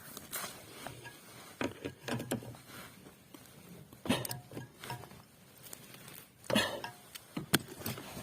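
Irregular metallic clicks and knocks of a ratchet wrench and 13 mm socket being worked on a steering-shaft universal-joint bolt, tightening the joint to cure a knock in the steering.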